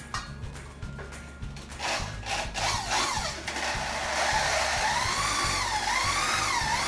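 Electric drill with a paddle mixer stirring tile adhesive in a bucket: after a few light knocks, the motor whine starts about two seconds in and wavers up and down in pitch as the speed changes.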